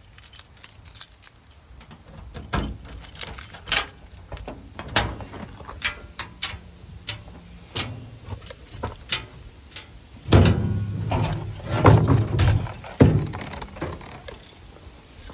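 Metal truck toolbox opened and gear handled inside: clicks and jangling of metal rigging hardware among coiled climbing rope. About ten seconds in come heavier clunks and thumps as the chainsaw is pulled out of the box.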